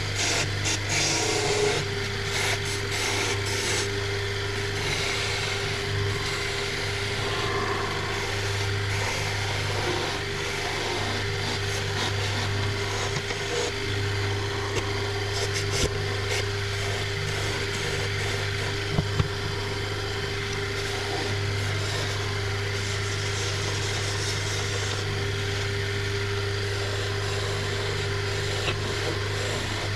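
Wood lathe running with a steady low hum and a constant whine while a skew chisel cuts the spinning wooden spindle, giving an even shaving hiss. A few sharp ticks come midway.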